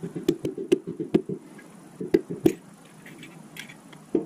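Quick runs of light knocking taps, several a second: a hammer handle tapping a piston down through a ring compressor into a cylinder bore of a 350 V8 short block. The taps are densest in the first second and a half, with a few more around two seconds in.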